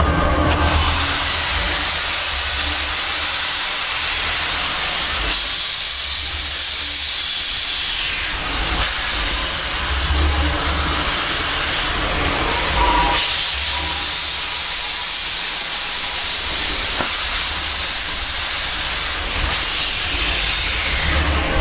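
Baldwin 2-8-2 steam locomotive letting off steam in a loud, near-steady hiss that eases briefly twice.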